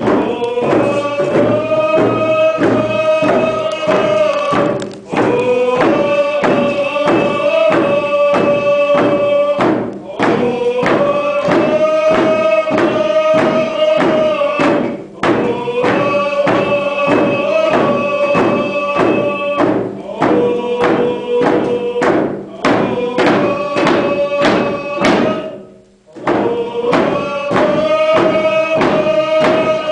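A group of men singing a Native drum song together while beating hand drums in a steady beat. The song comes in phrases broken by short pauses every five seconds or so.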